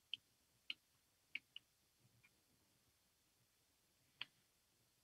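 Faint, sharp clicks from a computer pointing device drawing on a digital whiteboard: about six of them, irregularly spaced, the last a little after four seconds in, with near silence between.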